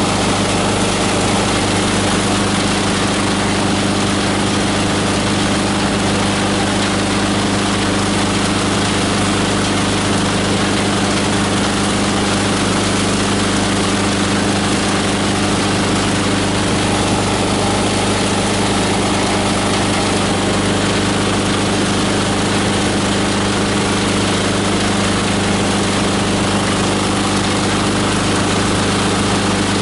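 18 HP diesel engine driving a multi-blade plastic and paper grinder, running steadily at an even speed with a constant low hum.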